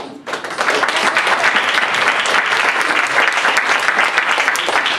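Audience applauding, breaking out about a quarter second in and going on steadily as dense clapping.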